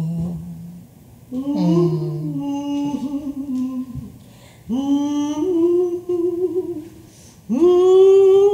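A low sung note ends in the first second. Then a woman hums a wordless tune in three long, wavering phrases, each pitched a little higher than the one before.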